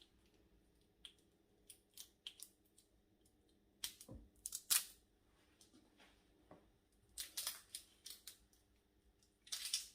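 Scattered taps, clicks and short rustles of a container of dried mixed herbs being tapped and shaken out, with a denser burst of rustling near the end.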